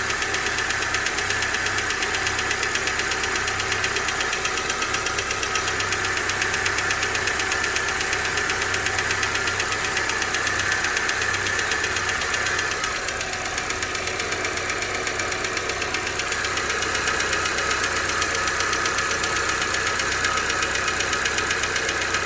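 2019 Honda HR-V engine running with a rapid, steady ticking knock, the strange noise the owner is recording.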